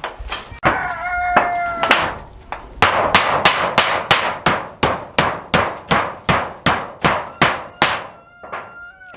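Hammer driving nails into a roof: a few blows that leave a ringing note, then a steady run of about a dozen and a half blows at about three a second, tapering to lighter taps near the end.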